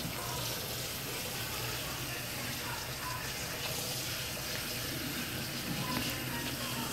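Kitchen faucet running in a steady stream into a stainless steel sink, water splashing over a flounder being rinsed by hand under it.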